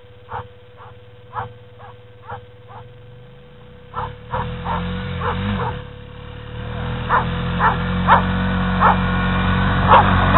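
A dog yipping over and over, short sharp calls about two a second. About four seconds in, a low steady rumble comes in underneath and grows louder.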